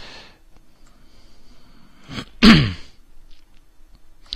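A man sneezes once, about two and a half seconds in: a short build-up, then one loud burst whose voice falls in pitch. There is a short click near the end.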